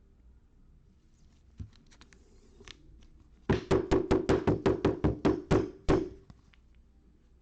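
A quick run of about a dozen sharp knocks on a hard surface, about five a second, lasting a couple of seconds.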